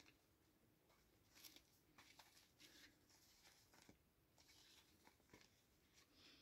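Faint, intermittent rustling with a few light clicks: CDs and their plastic cases being handled and sorted.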